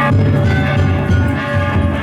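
Danjiri festival music: a taiko drum beating steadily with ringing metal hand gongs.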